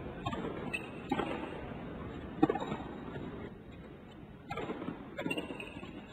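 Tennis ball struck by rackets and bouncing on a hard court, a string of sharp pops over a low steady arena murmur; the loudest hit comes about two and a half seconds in, with a quick cluster of hits near the end.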